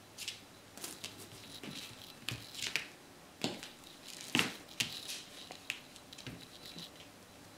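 Kittens scrabbling and pouncing on a wooden floor while playing with a cat wand toy: an irregular string of soft scratches, taps and rustles.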